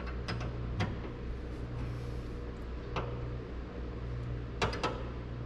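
A handful of light clicks and taps as a gloved hand works a small tool at the Trans Am's power antenna mount, with a quick cluster of clicks near the end, over a steady low hum.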